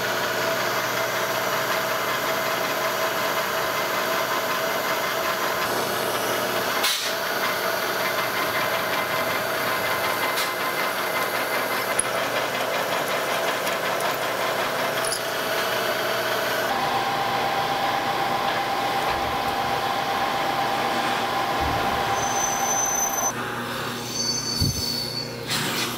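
Drill press running as a twist drill bores into a block of cold-rolled steel: a steady machine hum with a whine. About 17 seconds in the whine steps higher, and shortly before the end the machine stops, leaving a few light metal knocks.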